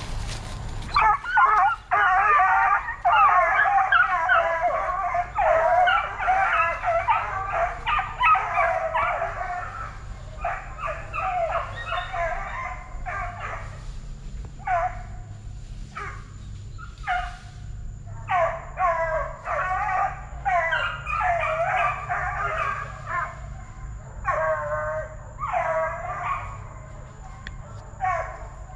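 Several young Plott hound–black and tan coonhound cross pups baying and howling together, their high-pitched bawls and yips overlapping. The calling is dense for the first several seconds, then breaks into shorter bursts.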